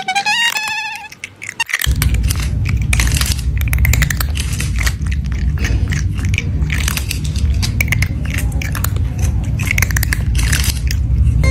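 A short melodic tune ends within the first second. From about two seconds in, a cat chews and crunches food close to the microphone in a dense run of crackly bites over a steady low rumble.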